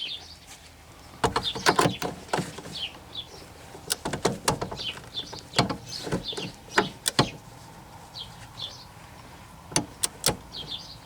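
Irregular sharp metallic clicks and clinks of a torque wrench and socket tightening a suspension nut, some in quick little runs like a ratchet. Birds chirp faintly in the background.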